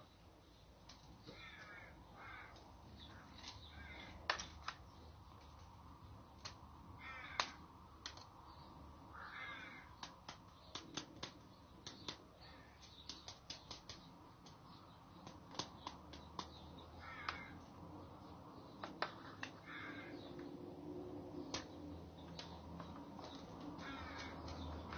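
Crows cawing in short hoarse calls every few seconds, with sharp clicks of small plastic and metal parts being handled, several in quick runs.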